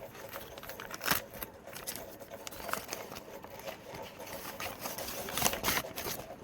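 Parcel packaging being opened by hand: scattered rustles and crinkles, with a sharp crackle about a second in and a cluster of louder rustles near the end.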